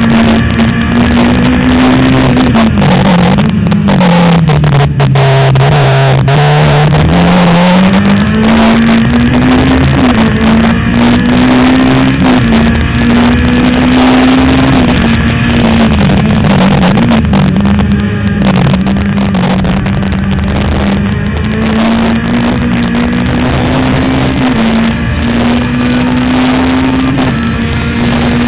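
Super Turismo race car's engine heard loud from on board at high revs; about three seconds in its pitch drops and stays low for a few seconds as the car slows, then climbs back and holds high with a few brief dips.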